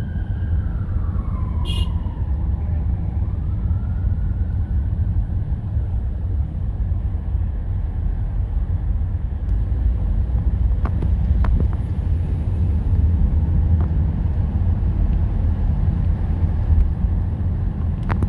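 Steady low road and engine rumble inside a moving car in traffic. An emergency vehicle's siren wails in the first few seconds, falling and then rising again before it fades, and there is a sharp click about two seconds in.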